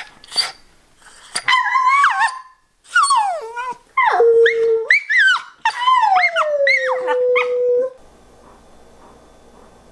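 Old English Sheepdog puppy howling: a run of high, wavering calls that slide up and down in pitch. The last call falls and is held for about two seconds.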